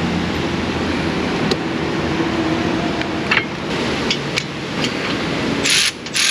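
Steady shop background hum with a few light metallic clicks as brake pads are handled and fitted into a disc brake caliper. Near the end, a loud hissing noise starts.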